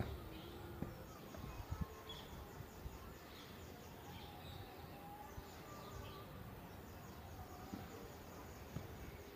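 Faint outdoor ambience: scattered short bird chirps and a rapidly pulsing high insect call over a low rumble.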